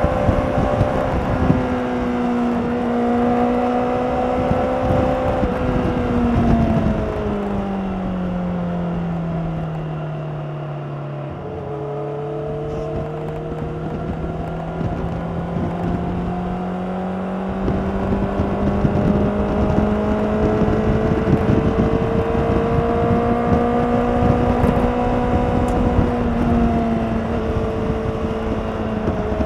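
2016 Honda CBR600RR's inline-four engine running under way on its stock exhaust. The revs hold steady at first, fall away about a quarter of the way in, then climb slowly back over the next fifteen seconds or so, easing off slightly near the end.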